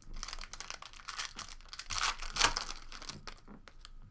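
Wrapper of a 2016 Panini Limited Football card pack crinkling and tearing as it is pulled open by hand, with a sharp crackle about two and a half seconds in, then quieter rustling of the cards being handled.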